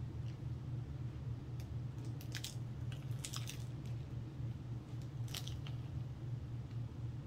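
Bites and chewing of a chicken taco, with short clusters of crisp crunches about two seconds in, again around three seconds, and once more past five seconds, over a steady low hum.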